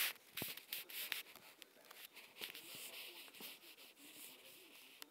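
Faint rustling of bed sheets and duvet, with scattered soft clicks and taps, busiest in the first second or so and again a few seconds in.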